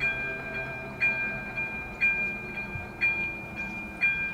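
Level-crossing warning bell striking about once a second, each strike a two-tone ding that rings on until the next, five strikes in all. It keeps ringing while the barriers lift after the train has passed.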